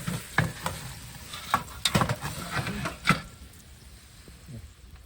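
A series of sharp clicks and knocks, about half a dozen in the first three seconds, the loudest near the end of that run, over a low background rumble.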